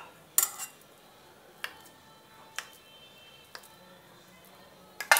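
A few sharp, light clicks and taps over a quiet background, the kind made by handling kitchenware. There is a loud cluster about half a second in, single ticks roughly once a second after that, and a loud double click at the end.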